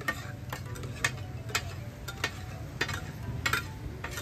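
Metal spatulas scraping and clacking on a large flat iron griddle, about two strokes a second, as an egg-and-mince tikki mixture is turned and chopped over the heat, with a light sizzle underneath.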